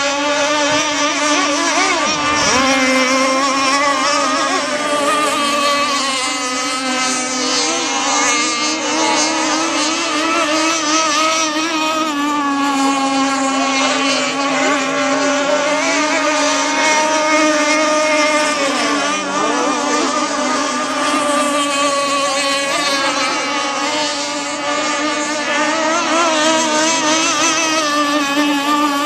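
Several radio-controlled gas catamaran racing boats running their small two-stroke engines flat out, their buzzing engine whines overlapping and drifting up and down in pitch as the boats race the straights and turns of the course.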